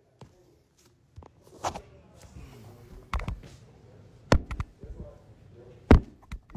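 Handling noise from a phone being moved about: a few separate sharp knocks and rubs over a faint murmur of voices.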